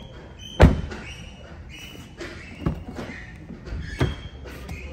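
An SUV door shuts with a heavy thump about half a second in. Two lighter knocks follow, near the middle and near the end.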